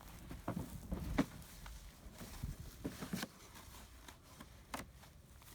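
Scattered light knocks and rustling as items are handled in an old wooden storage box, with the sharpest knock about a second in.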